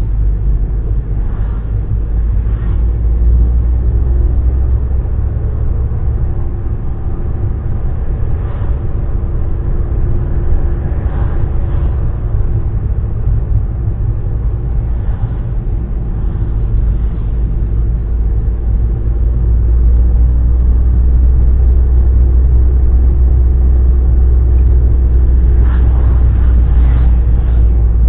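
Car driving, heard from inside the cabin: a steady low rumble of engine and road noise that grows louder about twenty seconds in.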